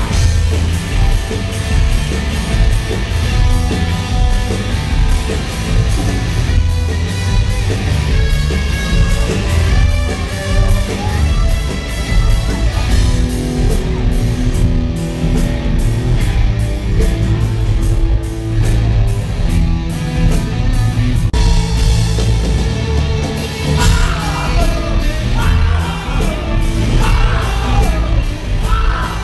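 Rock band playing live at full volume: electric guitars, heavy bass and drums, with a run of steady cymbal and drum strokes in the middle. A voice sings and yells over the band in the last few seconds.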